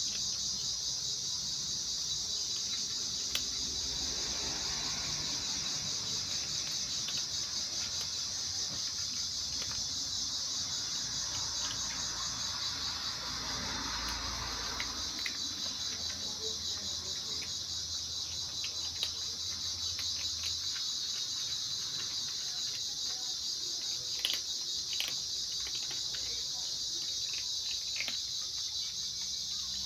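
Steady, high-pitched chorus of insects chirping throughout, with scattered small clicks and ticks over it, in keeping with kittens eating food.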